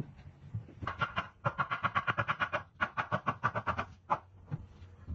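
A fast run of sharp taps or knocks on wood, about nine a second, with a short break near the middle. It stops a little before the end, with one more knock after it.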